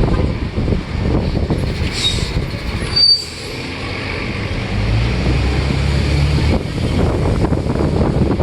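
Tour bus on the move in city traffic, with steady engine and road noise. A brief high squeal comes about two to three seconds in, and from about halfway through the engine's low drone grows stronger.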